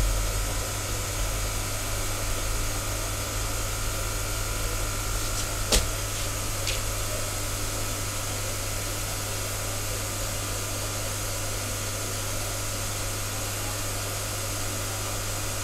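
Steady electric hum and hiss of running fish-tank aeration equipment, with one sharp click about six seconds in.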